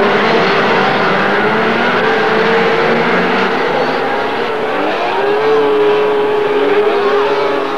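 Several racing snowmobiles' two-stroke engines running hard, the engine pitch wavering and rising about halfway through as the sleds race past.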